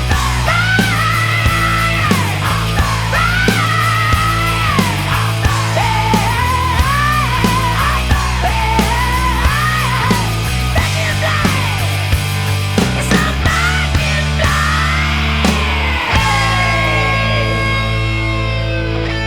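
Rock music soundtrack with a steady, driving bass line and a bending lead melody; about three-quarters of the way through the bass drops out briefly under a long falling glide.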